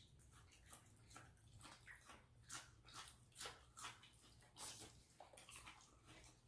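Faint close-up chewing and wet mouth smacks, a few each second, over a low steady hum.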